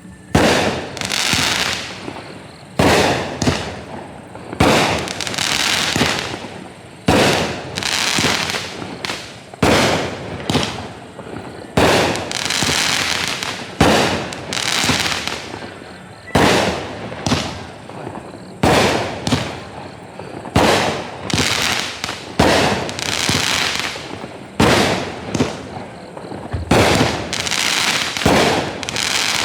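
Fox Fireworks 'Time Travel' consumer firework going off in a regular sequence of shots, a bang about every two seconds, each followed by a loud hissing tail that fades over a second or so.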